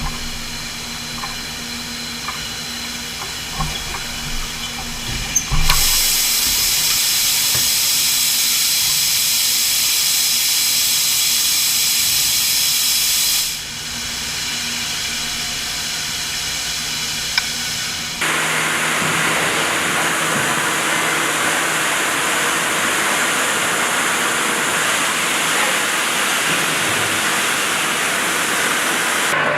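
Steady hissing machine noise of an engine plant, in blocks that change abruptly about six, thirteen and eighteen seconds in.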